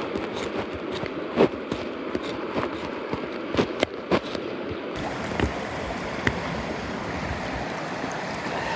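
Damp firewood in a campfire crackling, with a few sharp pops, the loudest about a second and a half in and a quick cluster near the middle, over the steady rush of a mountain stream.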